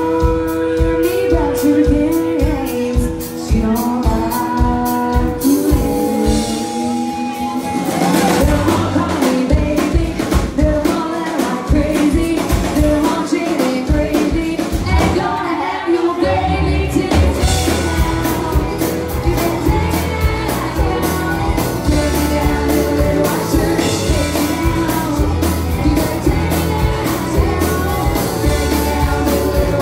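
Live rock band playing in a club: drums, electric guitars and bass under a female lead vocal, heard from within the crowd. The band gets heavier about halfway through, with deep bass and denser playing.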